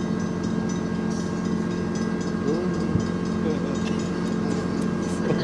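Steady low hum and rumble of a diesel freight train, with faint light clicking.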